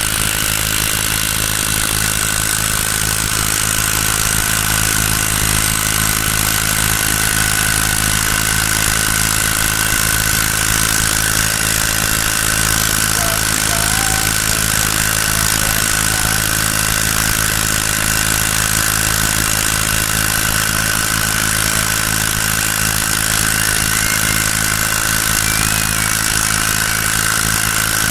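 Small grass-cutter engine rigged as a boat motor, running at a steady speed with no change in pitch.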